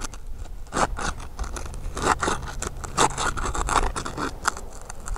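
Flat pry bar scraping under asphalt 3-tab shingles, a run of short, irregular scrapes as the tabs are pried loose from their tar seal strip.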